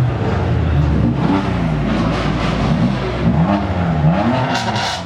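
Sports car engine revving hard, its pitch rising and falling several times in quick succession.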